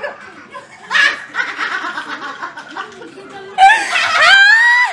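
Laughter, with a short burst about a second in, breaking into a long high-pitched squeal that rises slightly in pitch over the last second or so.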